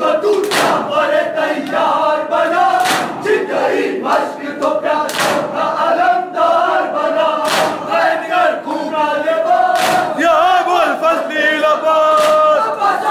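A crowd of men chanting a mourning chant together, with a loud unison slap of hands striking bare chests (matam) about every two and a half seconds.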